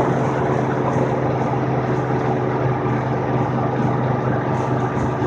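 Vehicle engine running at a steady, unchanging speed during a slow ride, over a constant rushing noise.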